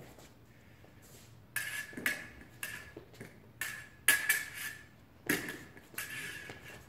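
Fencing blades clashing in a drill: a string of sharp metallic clinks at uneven spacing, starting about a second and a half in, some with a brief ring.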